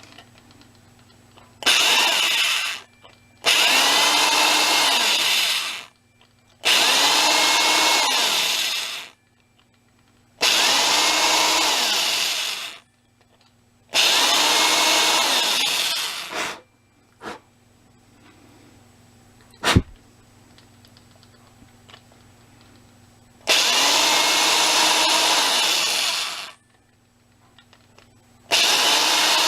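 An electric drill with a large bit boring into a plastic rivet on a model railway truck's bogie, run in about seven short bursts of two to three seconds each, its motor pitch rising at each start and falling at each stop. The bursts are stab-in, pull-away passes that wear down the rivet's top rim so it can be pried off. A single sharp click comes in the longer pause about two-thirds of the way through.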